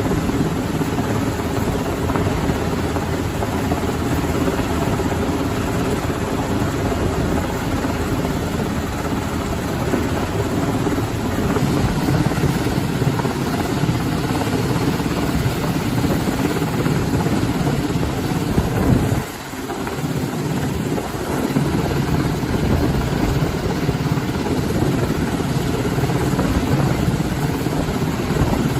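MH-60 Jayhawk helicopter's rotor and engines running steadily, with a brief drop in level about two-thirds of the way through.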